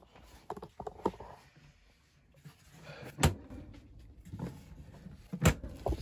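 The two lids of a Dometic CFX3 75DZ dual-zone fridge/freezer being shut one after the other: two sharp thumps a little over two seconds apart, after some lighter clicks and handling noise.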